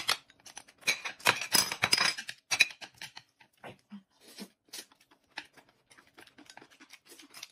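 Close-up eating sounds: a mouthful of noodles being slurped and chewed, with light clicks of chopsticks against china dishes. The loudest, densest stretch comes about one to two seconds in, then only scattered small clicks and mouth noises.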